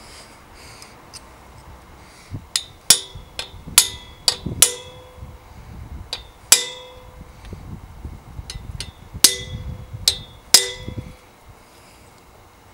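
Hammer tapping metal on metal, seating headset cups into a bicycle frame's head tube: about fifteen sharp, ringing taps in irregular clusters, starting about two seconds in.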